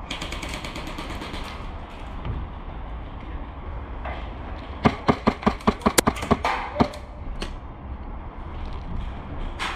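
Airsoft gunfire: a quick rapid burst at the start, then about a dozen sharp shots in roughly two seconds midway, over a steady low rumble of wind or handling noise.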